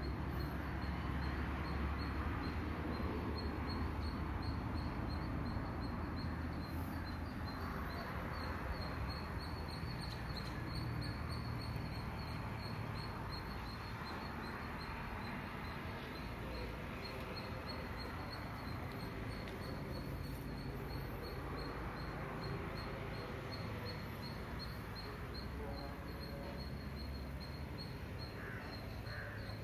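Outdoor rooftop ambience: low wind rumble on the microphone, with birds calling and a steady, fine, high-pitched ticking throughout.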